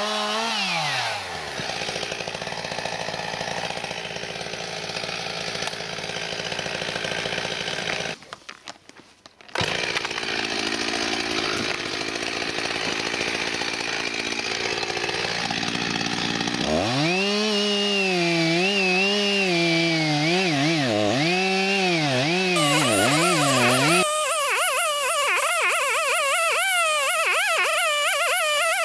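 Two-stroke chainsaw with a Stihl Rapid Duro 3 carbide-tipped chain running and cutting through alder stumps close to the ground. In the later part its engine pitch wavers up and down under load. The saw sound drops out briefly about eight seconds in.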